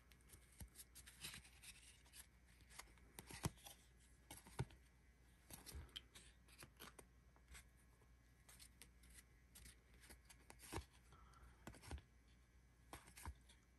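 Baseball trading cards being flipped through by hand, giving faint, irregular clicks and soft slides of card stock against card stock, with a couple of sharper snaps a few seconds in.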